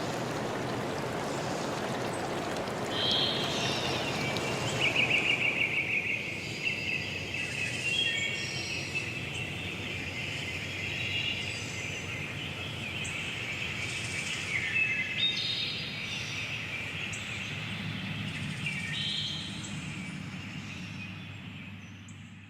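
Stream water rushing for the first few seconds, then several birds singing and chirping in overlapping phrases over a steady low rumble. The sound fades out near the end.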